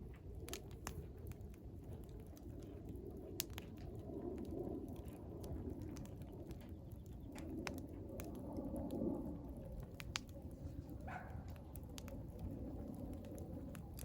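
Wood fire burning in a fire pit: a low rush of flames that swells and eases, with scattered sharp crackles and pops from the burning wood. A brief rising chirp sounds about eleven seconds in.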